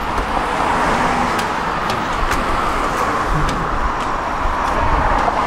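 Steady street traffic noise beside a tram standing at a platform, with a low rumble underneath. A few sharp clicks of footsteps on the pavement sound through it.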